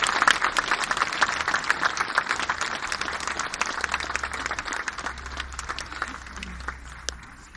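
Audience applauding, loudest at the start and dying away toward the end.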